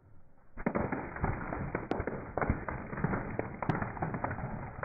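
Eggshells cracking and popping in a rapid, dense crackle as a car tyre rolls over two cartons of eggs. It starts about half a second in and runs for about four seconds, tapering off near the end.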